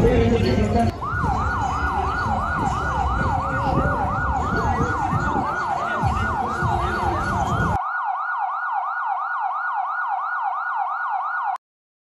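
Electronic siren sounding a fast rising wail, repeated about three times a second, over background noise. The background cuts out about eight seconds in, leaving the siren alone until it stops abruptly near the end.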